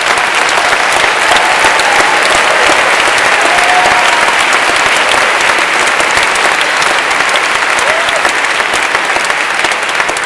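Large audience applauding, loud and steady, easing off slightly near the end.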